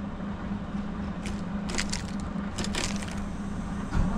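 Keys on a lanyard rattling and clicking as the ignition key is worked in a Scania truck's dash, with a few short clicks over a steady low hum.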